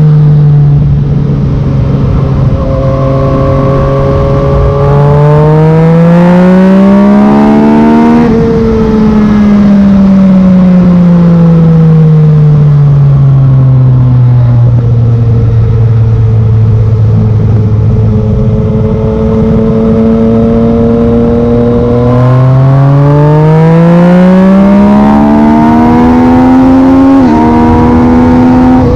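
Yamaha MT-09's three-cylinder engine through a Black Widow carbon full exhaust, under way: holding steady revs, then pulling up in pitch over about three seconds and slowly winding down as the throttle is rolled off. It pulls up again later, and near the end there is a sudden small drop in the note, a quickshifter upshift, with low wind rumble underneath.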